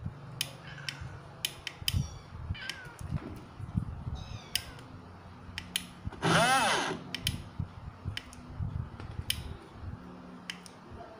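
A cat meows once, loudly, about six seconds in, among scattered sharp clicks and taps from a plastic portable blender cup being handled.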